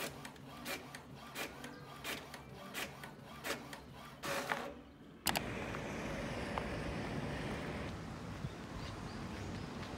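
HP all-in-one inkjet printer printing a page: the print carriage passes with a stroke about every 0.7 seconds while the paper feeds out. About five seconds in it cuts suddenly to louder steady street noise.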